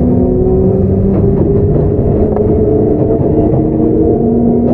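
Sotetsu 9000 series electric train under way, heard on board: the Hitachi IGBT inverter and the right-angle cardan drive give a whine of several steady tones over a heavy rumble of wheels on rail. A lower tone comes up near the end, and there are a few faint clicks from the track.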